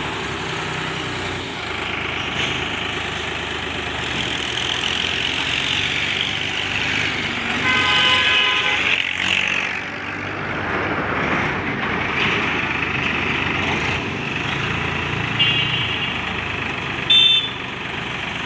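Case IH JX55T tractor engine running steadily while its hydraulic tipping trolley is raised to dump soil. A vehicle horn sounds for about a second midway through, then gives two short toots near the end.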